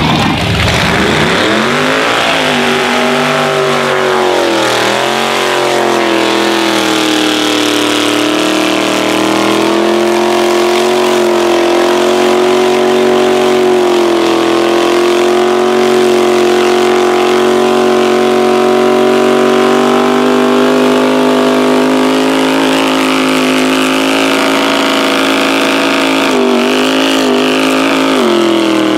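Mega truck engine at full throttle. The revs climb, dip briefly a few seconds in, then hold high and steady in a long drone while the truck ploughs through a mud pit. Near the end the revs waver and then fall off.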